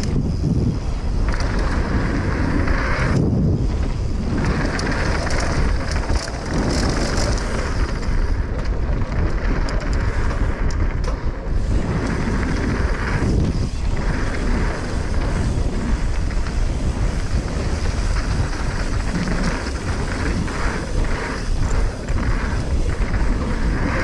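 Wind rushing over an action camera's microphone as a mountain bike runs fast down a dirt jump trail, with tyres rolling on dirt and gravel. Short knocks and rattles from the bike come over the bumps, most often near the end.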